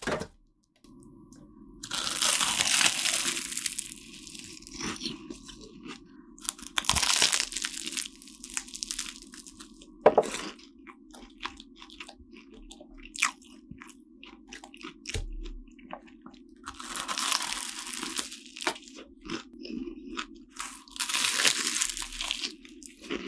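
Flaky, crisp croissant pastry crackling and crunching as it is torn apart and bitten, with close-miked chewing and small crumb crackles in between. The loud crackling comes in four or five bursts, over a faint steady low hum.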